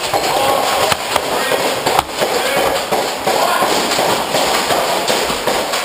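Nerf foam-dart blasters firing in quick, overlapping volleys, a dense clatter of pops and clicks, with players shouting over it.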